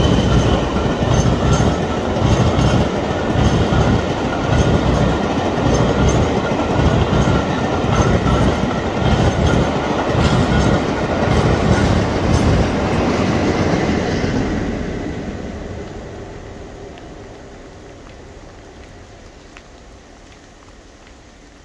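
A long rake of passenger coaches passing at speed, wheels clattering rhythmically over the rail joints. About two-thirds of the way through the rumble fades steadily as the train draws away, leaving only a faint distant sound.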